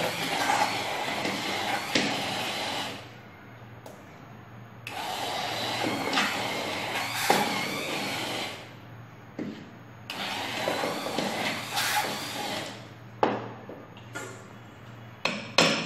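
Hand-held immersion blender whirring in thick milk and mango pulp in a steel pot, run in three bursts of a few seconds each with short pauses between. A few sharp knocks near the end.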